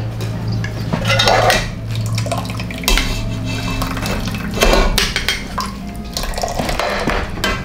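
A stainless-steel conical strainer knocking and clanking against a steel pot several times, with some liquid splashing, over a steady low hum.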